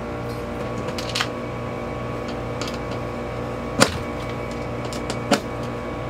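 Steady background music, with a few sharp clicks of small metal hardware and a hand screwdriver against the plywood floor; the loudest click comes near four seconds in.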